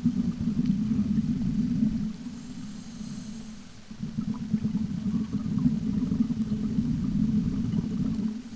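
Scuba diver's exhaled bubbles rumbling out of the regulator underwater, in two long exhalations with a quieter breath in between that carries a faint hiss. The bubbling stops just before the end.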